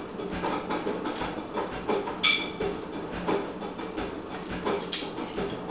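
Small Torx screwdriver working screws out of the thin metal housing of a car radio display unit: scattered light clicks and scrapes of tool and metal, with a brief metallic ring about two seconds in and a sharper click near the end.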